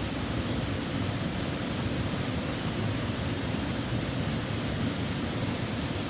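Steady rushing of falling or flowing water, an even unbroken roar with no change in level.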